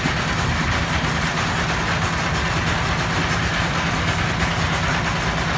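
A small engine running steadily nearby, a low, even drone.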